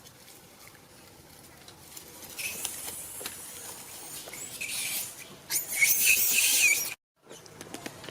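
A baby monkey screaming in shrill, rough squeals, in two bouts; the second is louder and breaks off abruptly about seven seconds in.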